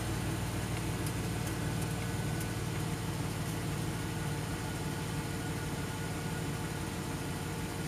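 Chevrolet vehicle's engine idling steadily, heard from inside the cab.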